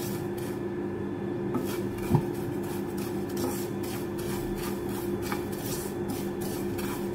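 A spatula scrapes and stirs grated coconut that is dry-roasting without oil in a pan, in many short, irregular strokes. A steady low hum runs underneath, and there is one sharp knock about two seconds in.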